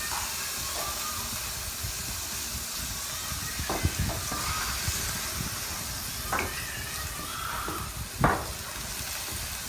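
Minced pork and garlic sizzling in oil in a frying pan, a steady hiss. There are three short sharp knocks about four, six and eight seconds in, the last the loudest.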